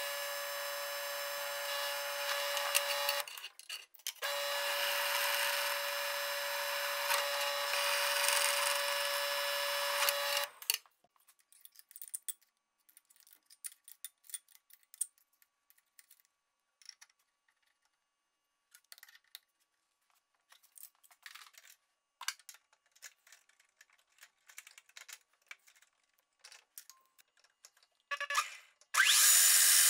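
Drill press running with its bit drilling a steel bar, a steady whine with a short break about three seconds in, stopping about ten seconds in. Then scattered light clicks and knocks of the bar being clamped in a milling-machine vise. Near the end the milling machine's spindle starts up with a loud steady run.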